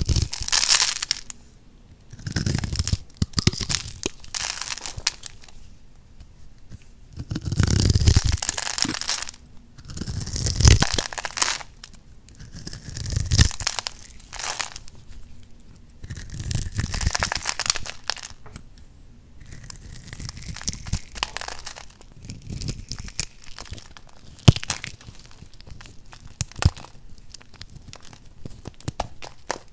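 A bare blade shaving crisp slices off a scored bar of soap, with small cubes and flakes cracking off it, in loud crunching strokes every couple of seconds. In the last third, softer crackling with sharp clicks as loose soap flakes and cubes are crumbled between the fingers.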